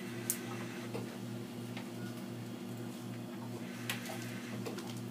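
Fresenius 2008K dialysis machine running with a steady low hum that pulses about two and a half times a second. Two sharp clicks, about a third of a second in and near the end, come from the blood-line tubing and clamps being handled.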